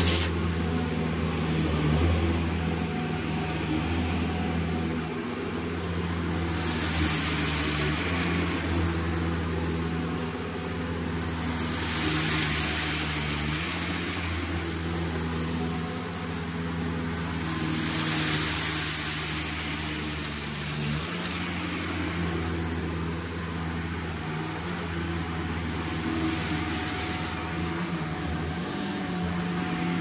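Shark NZ850UKT corded upright vacuum cleaner running in carpet low-pile mode, its motor humming steadily under a rushing hiss of suction that swells and fades several times as it is worked across the floor.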